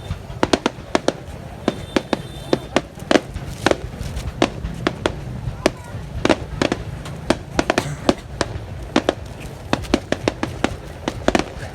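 Fireworks display: a rapid, irregular run of sharp bangs and pops, several a second, over a continuous low rumble.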